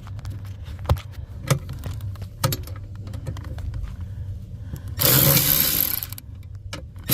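Clicks and knocks of parts being handled, then about five seconds in a loud motorized whir starts, runs for about a second, stops, and starts again near the end.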